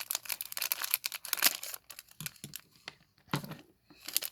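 Crinkling and crackling of plastic packaging being handled, most dense in the first two seconds, then a few scattered crackles and a short burst near the end.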